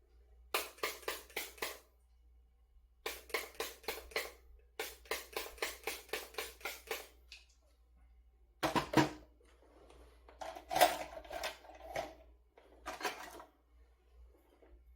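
Three quick runs of light clicks, about five or six a second, followed by several seconds of irregular clattering, as of small objects handled on a hard surface.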